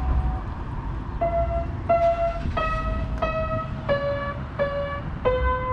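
A newly learned tune played one note at a time on a melodic instrument: a slow, falling line of about nine notes, each starting crisply, ending on a long held note. A steady low rumble runs underneath.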